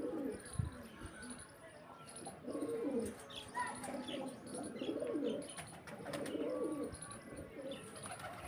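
Domestic pigeons cooing, a run of low, warbling coos from several birds that follow one another every second or so. Faint, short, high chirps come in between.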